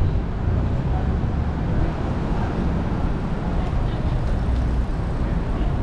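City street ambience: steady traffic noise from passing vehicles, with the voices of passers-by mixed in.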